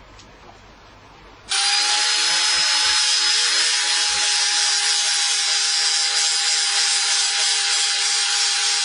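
Angle grinder switching on about a second and a half in and running steadily with a high whine, grinding back the top of a knife's bevel to make the bevel angle less steep without touching the cutting edge.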